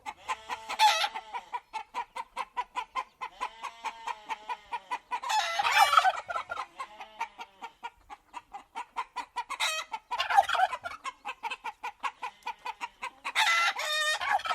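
Farm barn ambience of chickens clucking in a fast, steady patter. Louder, longer fowl calls break in about a second in, around the middle, and again twice toward the end.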